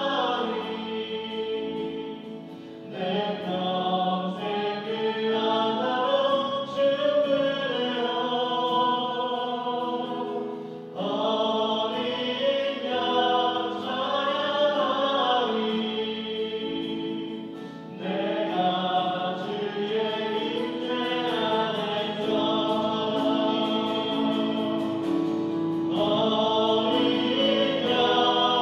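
Contemporary Christian praise song sung by a worship team of mixed male and female voices over a band accompaniment, in long phrases with short breaks between them.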